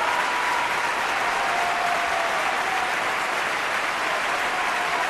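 Steady applause from an audience, with a faint steady tone running beneath it.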